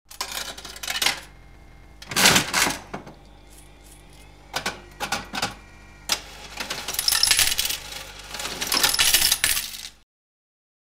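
Slot-machine payout sound effect: coins clattering and jingling in four bursts, the longest over the last few seconds, then cutting off suddenly.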